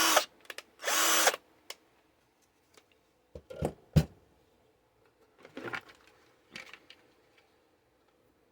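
20V cordless drill run in two short bursts near the start, each about half a second long, then a few sharp clicks and light knocks as the drill is handled.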